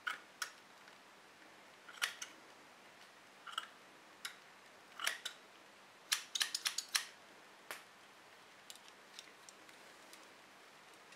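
Small metal scissors snipping through the fingertips of a filled rubber glove: a dozen or so sharp snips at uneven intervals, with a quick run of them about six seconds in and a few fainter clicks near the end.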